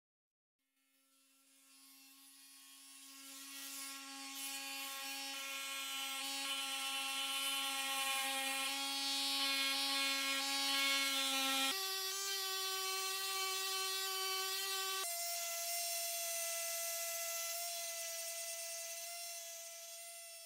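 Electric orbital sander running steadily against a steel gun receiver, a whine over a sanding hiss. It fades in, steps up in pitch suddenly twice in the second half, and fades out at the end.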